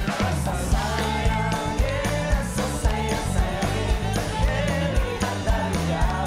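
Live band playing an upbeat pop tune with a steady drum beat and bass, with voices singing along.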